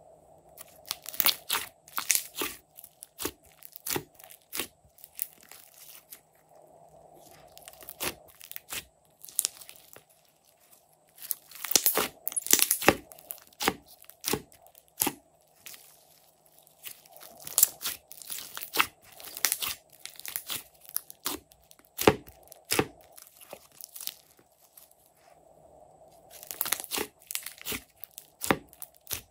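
Glossy slime being stretched, pressed and kneaded by hand in a glass dish: bursts of sticky crackling and popping as the fingers squeeze and pull it, in irregular flurries with short pauses between.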